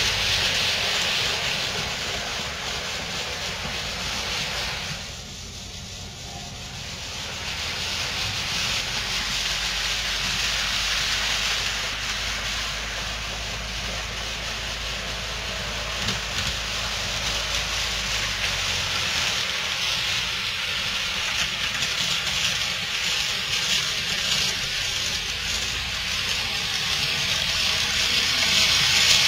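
HO and N scale model trains running on the layout: a steady hissing whirr of small motors and metal wheels on track, dipping briefly about five seconds in.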